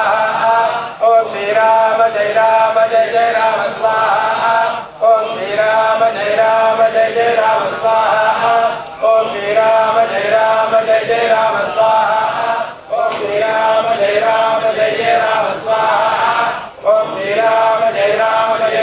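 A group of men chanting a Sanskrit mantra in unison on a steady held pitch. The chant comes in repeated phrases about four seconds long, with short gaps between them.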